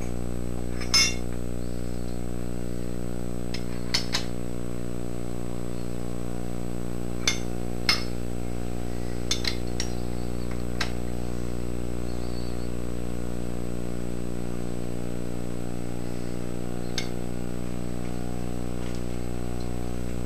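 Short, sharp metallic clinks at irregular intervals, about a dozen in all, from steel tooling being handled on a milling machine table. They come over a steady low hum.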